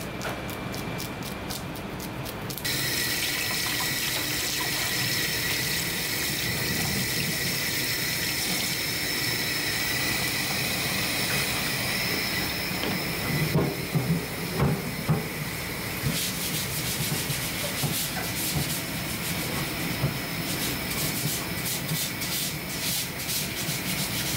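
A knife scraping the scales off a fish in quick strokes for the first couple of seconds, then tap water running steadily onto the scaled fish in a plastic colander as it is rinsed, with a few light knocks and a run of quick scratchy strokes in the last several seconds.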